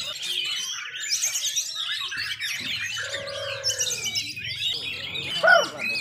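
Several caged songbirds singing at once in a dense, overlapping chorus, with fast high trills and a louder clear arching note near the end.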